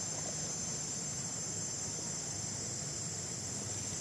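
Insects droning steadily at a high pitch, with a low even hum beneath.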